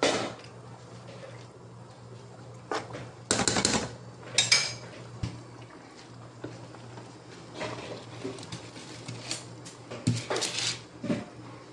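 Spoons knocking and scraping against a stainless steel cooking pot while rice is stirred in it, in irregular clatters with a loud knock at the start and clusters around the middle and near the end.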